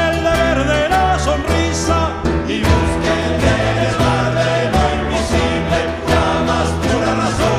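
Music: a song with a group of voices singing over bass and a steady beat.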